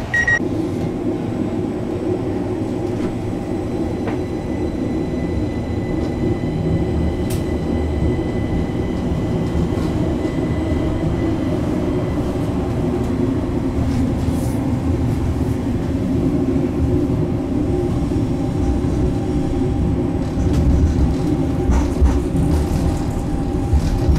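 Stadler Citylink tram-train heard from inside the passenger car as it pulls away and runs along the line: a steady rumble of running gear and motors, with a thin high whine through roughly the first half.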